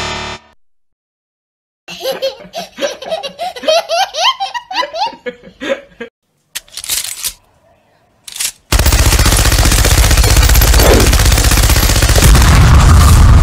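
A short wrong-answer buzzer, then a baby's giggling laughter for a few seconds. About nine seconds in, a machine gun starts firing a long, loud, rapid burst.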